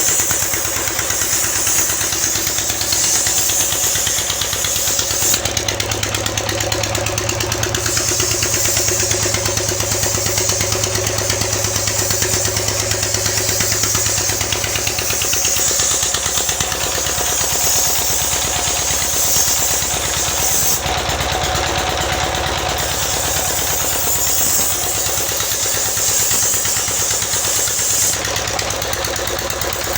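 Diesel engine idling steadily, a fast even run of firing pulses that holds the same pace throughout.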